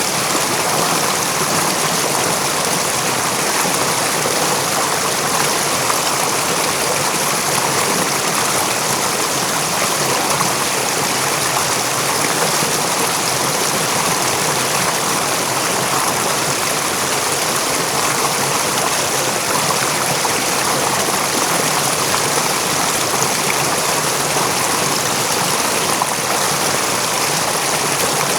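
River water running steadily over rocks: a continuous, even rush with no breaks.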